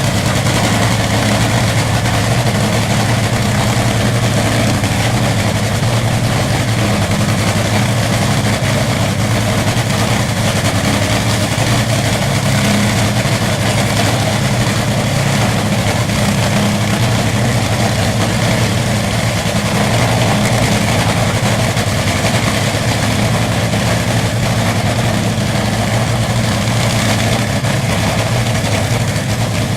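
Supercharged nitromethane V8 of a Top Fuel drag-racing car running steadily at idle, loud and rough, with no revving.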